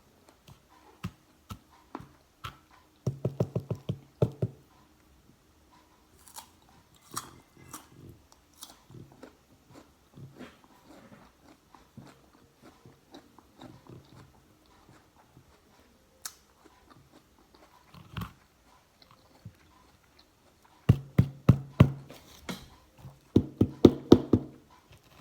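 Close-miked chewing of crunchy seedless guava: a rapid run of crunchy bites about three seconds in and another near the end, with sparser chewing clicks in between.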